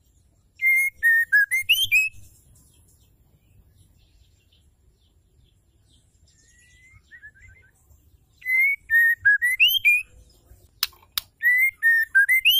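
Female white-rumped shama (murai batu) calling: a short phrase of clear whistled notes that dip and then end in a rising upslur, given about a second in and twice more near the end. Two sharp clicks come just before the last phrase.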